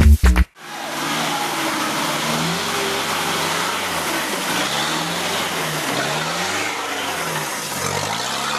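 Music stops about half a second in, then a 4x4 off-road vehicle's engine runs, its pitch rising and falling again and again as it is revved, over a steady hiss.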